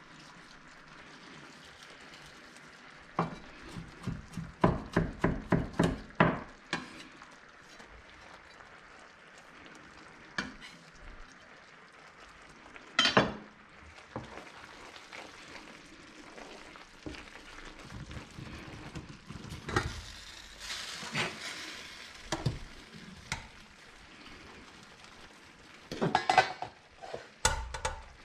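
A chef's knife chopping on a bamboo cutting board: a quick run of about a dozen even strokes, a few seconds in. Then a cream sauce simmering and frying in a pan while it is stirred, with scattered knocks. Near the end, a metal spaghetti server clatters against the pasta pot.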